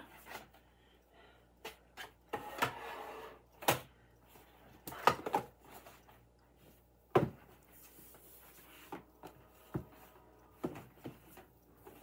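Small objects being handled and set down on a desk: scattered clicks and knocks of things touching wood and hard surfaces, with a short rustle about two and a half seconds in and the sharpest knock about seven seconds in.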